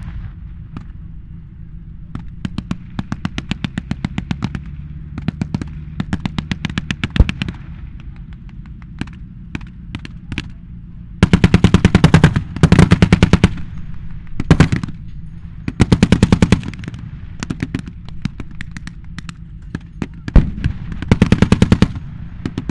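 Repeated bursts of machine-gun fire, about ten shots a second. Lighter strings of shots come in the first seconds, then louder bursts about eleven seconds in, around sixteen seconds, and near the end, over a steady low rumble.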